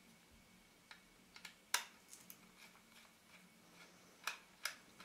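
Faint, scattered light clicks and taps from small tools and the plastic and metal parts of a partly disassembled Canon EOS 450D DSLR being handled. The loudest click comes about a third of the way in.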